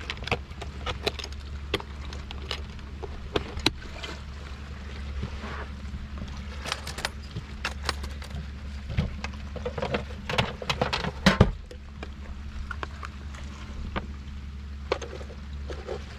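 Plastic tackle boxes, a cooler and bait containers being picked up, shifted and set down: an irregular run of clicks, knocks and light rattles, the loudest knock about eleven seconds in, over a steady low hum.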